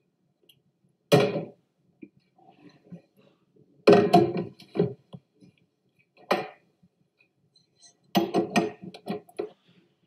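Stainless steel stand-mixer bowl and mixer parts clanking and knocking as the bowl is set onto the mixer base and the dough hook fitted. The sound comes in four separate bursts, the last a quick run of several knocks near the end.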